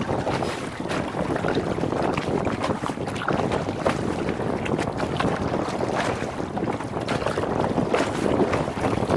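Wind buffeting the microphone over water splashing and sloshing against the hull of a sit-on-top kayak as it is paddled through choppy sea, with the paddle blades dipping in on alternate sides.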